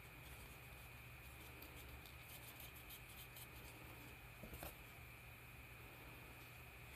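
Faint rustling and rubbing as a paper towel is worked over a small leather patch, with one small sharp click about four and a half seconds in.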